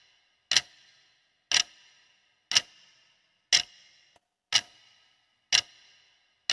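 Clock-style ticking sound effect for a countdown timer: one sharp tick each second, each with a short ringing tail.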